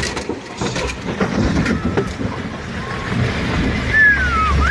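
Rumbling, rushing noise inside a car caught in floodwater, with knocks from the phone being handled. Near the end comes a short, high tone falling in pitch.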